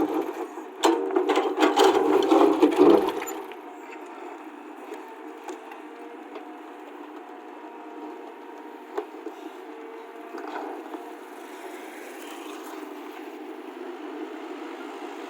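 Radio-controlled model construction machinery: loud clattering and knocking for about the first three seconds, then the steady low whir of small electric motors running.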